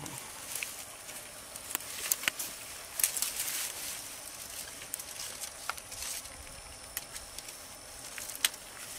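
Clicks and light rattles of a wire-mesh crawfish trap being handled and pulled open, with rustling, loudest about three seconds in.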